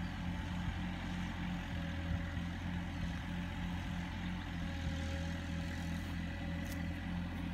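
Mini excavator's diesel engine running steadily, a low hum with a regular throb.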